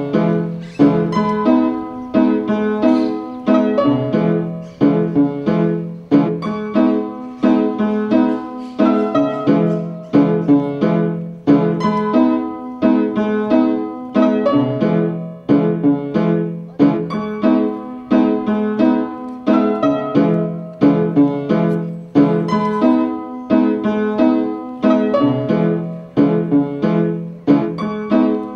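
Background music, mainly piano, playing a steady rhythm of repeated notes that ring and fade.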